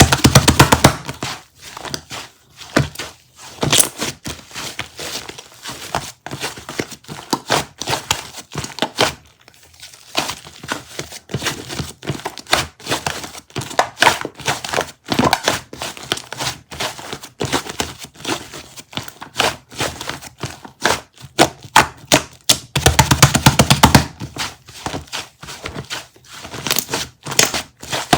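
Crinkling and rustling with many quick sharp taps and clicks, as of small things being handled; a denser, louder run of knocks comes near the end.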